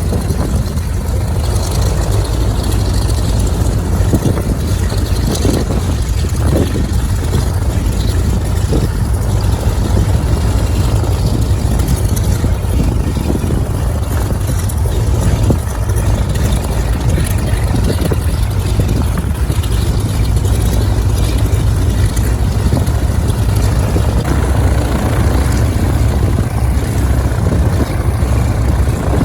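Beechcraft JRB-6 (Twin Beech) twin Pratt & Whitney R-985 radial engines running steadily at low power with propellers turning, a constant deep rumble.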